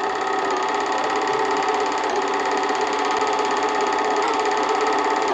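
An 8mm film projector running steadily, a continuous mechanical whir and clatter.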